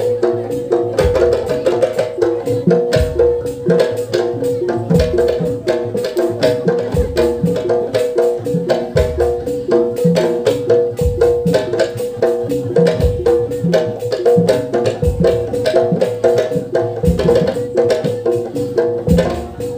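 Traditional percussion music: fast, dense drumming and clicking strokes over a steady, repeating melodic line, with a deep low stroke about every two seconds.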